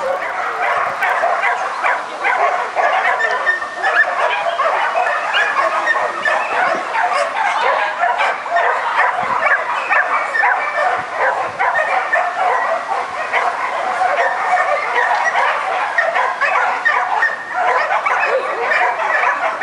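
Dogs barking continuously, a rapid, unbroken run of short, high-pitched barks.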